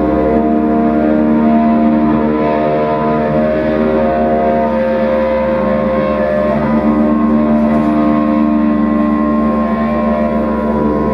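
Electric guitar through effects, holding a dense drone of many sustained tones, with single tones slowly fading in and out.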